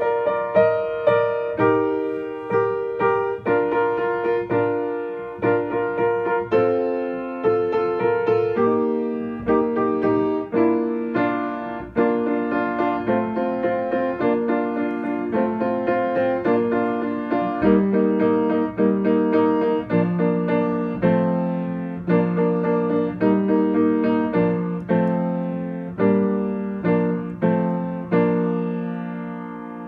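Yamaha piano played with both hands: a steady run of chords and melody notes, each struck note dying away, ending on a held chord near the end.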